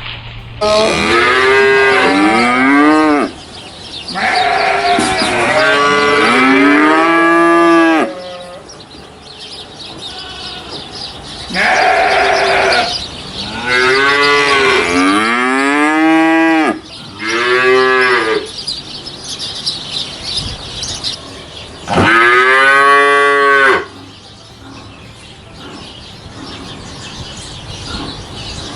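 Cattle mooing: a series of about six long moos, each rising and then falling in pitch, with quieter pauses between them.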